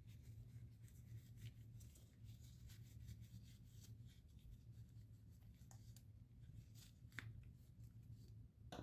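Near silence: a steady low hum with faint, scattered small ticks and light rubbing of hand work, one tick a little sharper about seven seconds in.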